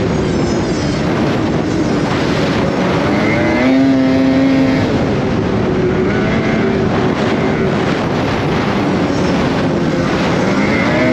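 Snowmobile engine running hard on a trail ride, its pitch climbing, holding and dropping several times as the throttle is worked, over a steady rush of noise.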